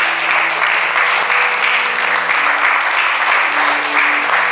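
Congregation applauding the newly presented bride and groom, with instrumental recessional music of held notes that change every second or so playing underneath.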